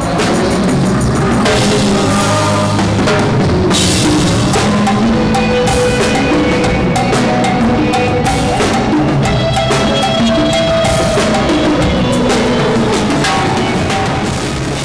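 Rock band playing at full volume, the drum kit (kick, snare and cymbals) to the fore with sustained bass and guitar notes underneath.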